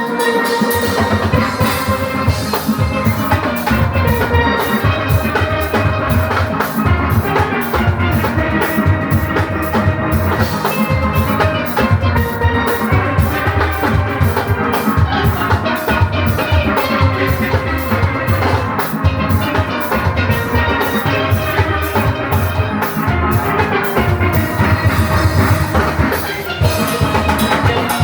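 Steel orchestra playing live: many steelpans sounding a quick rhythmic tune together over a steady drum-kit beat.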